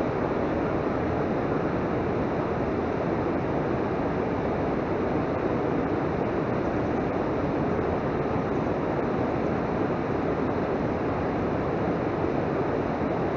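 A steady rushing noise without a break, the even hiss of wind and moving water around the boat, with no distinct event standing out.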